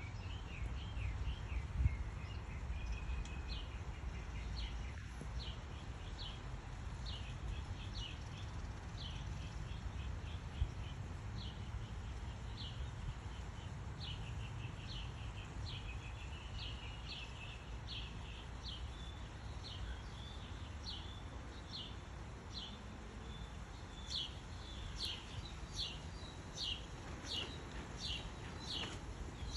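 A small bird chirping over and over: short, high chirps that drop in pitch, about once or twice a second, coming closer together near the end, over a steady low rumble.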